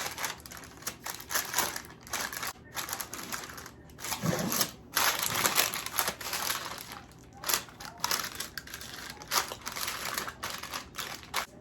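Parchment paper crinkling and rustling in irregular bursts as a sticky marshmallow and chocolate-chip mixture is pressed down into a parchment-lined pan.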